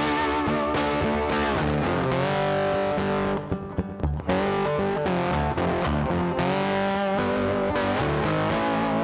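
Background music: a distorted electric guitar playing held, bending notes over a steady backing.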